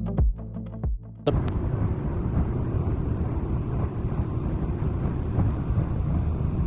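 Music with a thumping beat cuts off about a second in. It gives way to a steady rumble of a motorboat underway, with wind buffeting the microphone.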